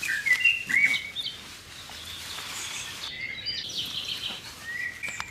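Birdsong: short chirps and gliding whistles from several birds, over a steady hiss of background noise.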